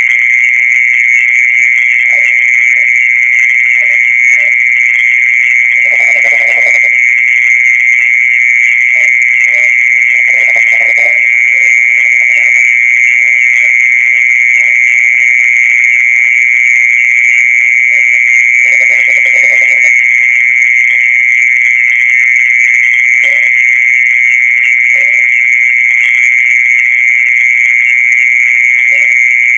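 A continuous, loud, high-pitched trill held at one steady pitch: the night-time ground song that is popularly called the earthworm's voice in Indonesia and is actually made by a mole cricket. Brief lower calls come and go beneath it, the most noticeable about 6, 10 and 19 seconds in.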